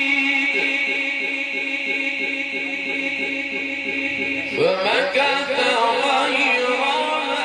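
A male Quran reciter chanting melodically through a microphone. He holds one long note with a steady quaver, then about four and a half seconds in sweeps sharply up in pitch into a new ornamented phrase.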